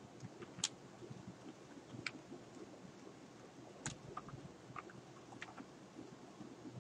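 Computer keyboard being typed on: a handful of faint, separate key clicks at uneven spacing, a short word's worth of keystrokes.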